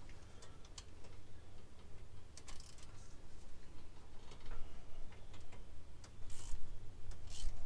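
Scattered metal clicks and clinks of a ratchet and a 5/8-inch spark plug socket on a 6-inch wobble extension being worked down into the spark plug wells to break a plug loose. There are brief louder clicking bursts about two and a half seconds in and again near the end.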